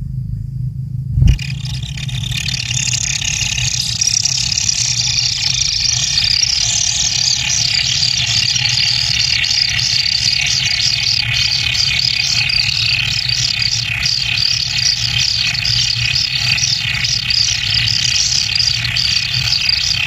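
A brood of kingfisher nestlings in their nest burrow calling noisily, a dense, continuous chorus of high, rapid calls: food begging as a parent brings in a fish. It starts just after a single thump about a second in.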